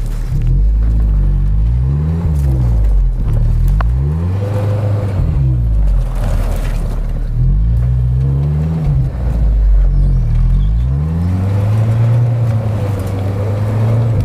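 Off-road SUV engine revving up and easing off again and again, in several rising and falling surges, as it struggles to climb a steep snowy slope.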